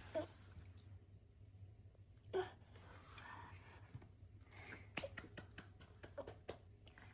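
A baby's short breathy vocal sounds, once just after the start and again about two seconds in, then a run of light clicks and taps from the baby handling things on the highchair tray and plate.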